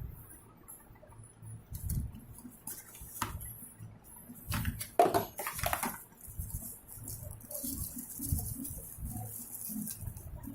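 Handling noise: scattered clicks, taps and rustles over a low rumble, with a louder cluster of clicks about halfway through.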